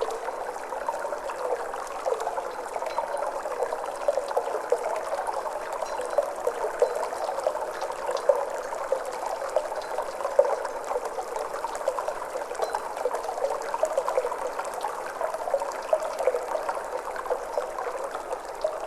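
Flowing water trickling and babbling at a steady level, with many small splashy flickers.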